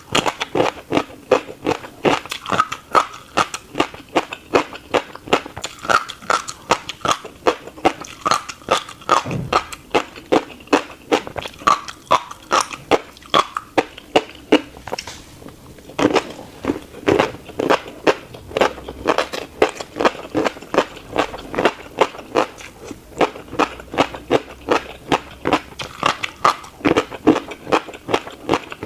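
Close-up chewing of a mouthful of tiny black seeds, a steady crunching of about three bites a second, with a short pause about halfway through.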